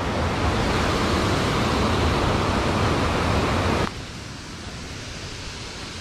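Steady rush of flowing creek water close to the microphone. About four seconds in it cuts off abruptly and gives way to a quieter, even outdoor hiss.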